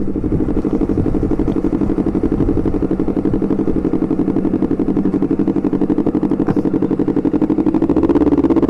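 Honda CBR250RR parallel-twin engine running through an R9 GP aftermarket racing exhaust while being ridden, a steady pulsing exhaust note that rises and gets louder near the end.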